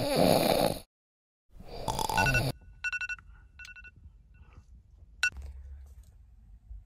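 The end of a car drifting, engine and tyre noise, cuts off suddenly into about half a second of silence. A brief burst of noise follows, then a run of short two-pitch electronic beeps and a single sharp click.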